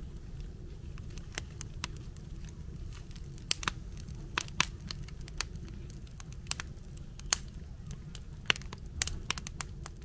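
Wood fire crackling in an arched brick fireplace: sharp, irregular pops from the burning split logs over a low, steady rumble, with the pops coming more often from a few seconds in.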